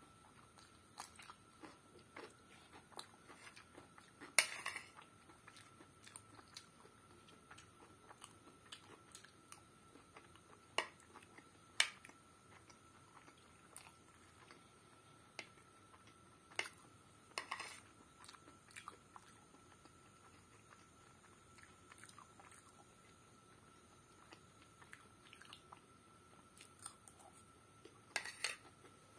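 Quiet close-up eating sounds: chewing and mouth sounds of someone eating egg pasta and cucumber, with scattered short clicks of a metal spoon against the plate. A few louder brief bursts stand out, about four seconds in, around twelve and eighteen seconds, and near the end.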